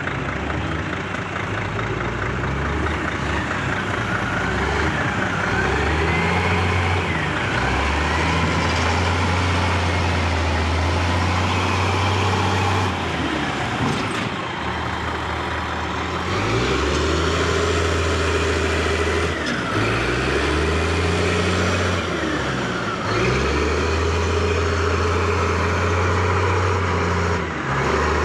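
Heavy diesel engine of a wheel loader working while loading logs, its note repeatedly dropping and rising again as it revs up and down.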